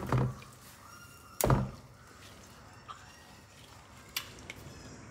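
Two dull thunks about a second and a half apart, then a few light clicks: a wet wig being worked in a plastic bowl that sits in a stainless steel sink.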